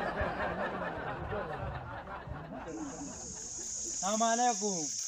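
Men's voices talking and chuckling, then from about two and a half seconds in a steady high-pitched insect drone. About four seconds in, a short, loud voiced call rises and falls over the drone.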